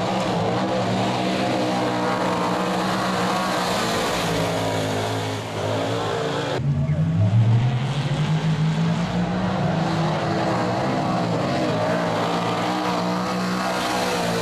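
V8 dirt modified race cars' engines running hard around a dirt speedway, the note rising and falling as the cars pass. About six and a half seconds in, the sound changes abruptly and one car passes close, its engine note rising and loudest for a moment.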